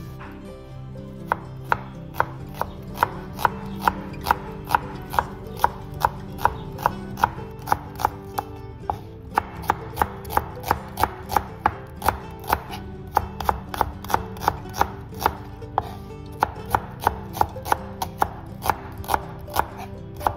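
Kitchen knife chopping small red onions on a plastic cutting board: sharp, even strokes about two to three a second, starting about a second in and pausing briefly twice, over quiet background music.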